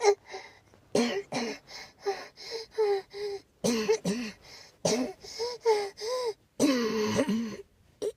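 A person coughing in quick, throaty fits: clusters of short coughs with brief gaps between them, about fifteen in all, the last a longer drawn-out cough.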